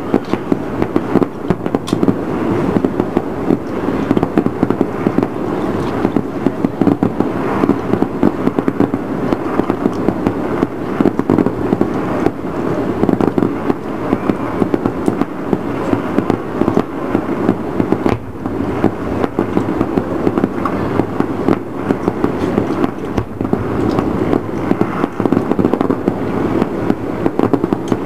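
Fireworks going off in a dense, unbroken stream of pops and crackles that overlap one another without a pause.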